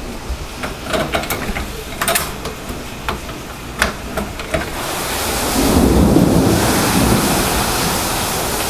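Heavy rain falling, with a few sharp taps in the first half. About five seconds in, a low rumble of thunder swells up and keeps rolling.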